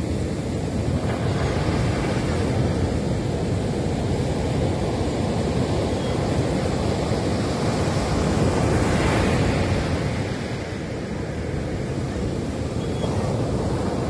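Ocean surf breaking and washing up a sandy beach: a steady rush of water that swells to a louder crash about nine seconds in, then eases.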